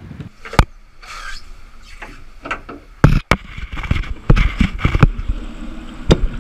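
Sharp clicks and knocks of hand tools and metal fittings being handled during a repair: a single one early, then a quicker, louder run of knocks through the second half.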